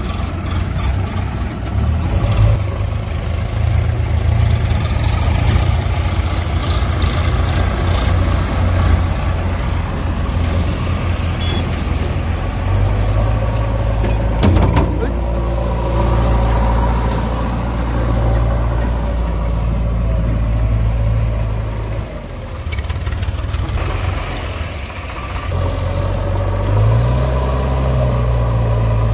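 A Sonalika tractor's diesel engine runs as it pulls a trailer across a muddy field. From about a third of the way in, a JCB 3DX backhoe loader's diesel engine runs close by instead, with a single knock midway. Near the end it revs up briefly.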